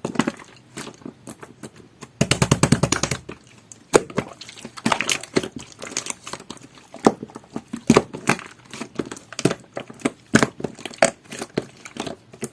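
Pink jelly-textured slime being squished and poked by hand, making irregular sticky clicks and pops, with a fast run of crackling pops about two seconds in.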